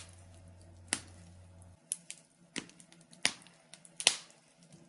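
Fire in a fireplace crackling: about half a dozen sharp, irregularly spaced pops, with a faint steady hum that stops just before the midpoint.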